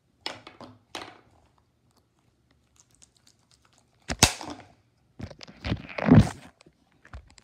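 Handling noise from a tablet camera: two short scuffs early on, a sharp knock about four seconds in, then the loudest stretch of bumps and rubbing as the device is picked up and swung around.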